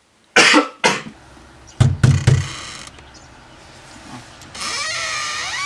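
A man coughing hard, then about three heavy knocks on a wooden front door about two seconds in. Near the end a steady, wavering hiss sets in.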